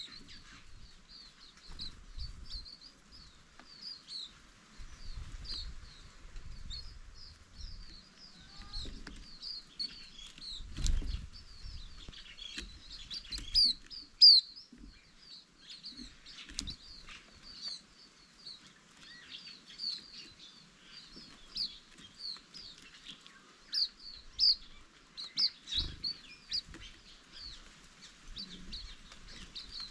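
A flock of green-backed white-eyes giving short, high chirps in quick succession, with a few low thumps mixed in.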